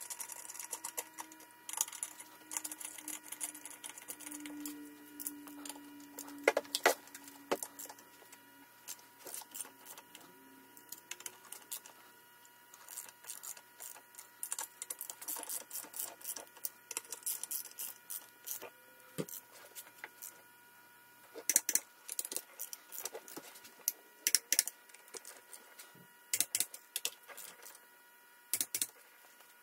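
Socket ratchet clicking in quick runs, with a few louder taps of the tool on metal, as bolts are tightened to join the two halves of an aluminium intake manifold. The clicking comes in bursts, busiest in the middle and toward the end.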